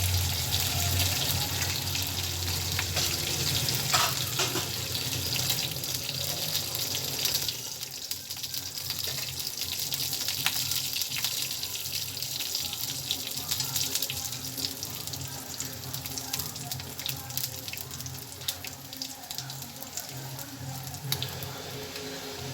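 Mustard and cumin seeds sizzling in hot ghee, with many small crackles and pops as the seeds start to splutter. Louder for the first seven seconds or so, then settling a little.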